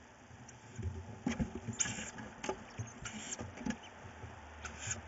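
Tawny owl chicks scrabbling and tussling in a wooden nest box: irregular scratches and knocks, with three short, high, hissing calls.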